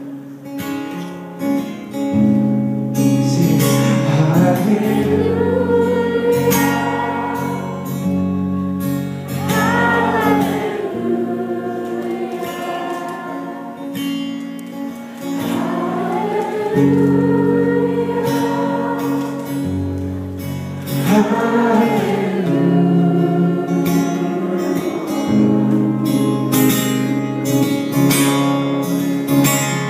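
Acoustic guitar strummed with singing over it, long held notes with a slow melody.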